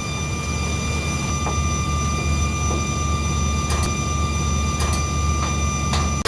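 Three-phase electric motor of a grain miller running steadily: a low drone with a thin high whine over it, and a few faint clicks.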